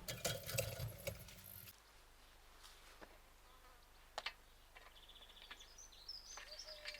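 Handling knocks and rustling as the camera is moved, cutting off after about a second and a half. Near the end, faint birds chirp in short high calls.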